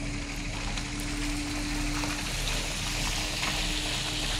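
Yutong city bus driving close past on a wet road. The hiss of its tyres on the wet surface grows louder as it passes. A steady hum fades out about halfway through.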